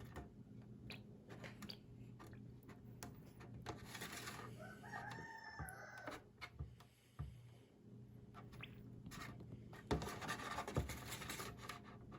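Faint clicks, knocks and rubbing as a phone is moved around in a container of water, with a brief pitched call lasting about a second and a half near the middle.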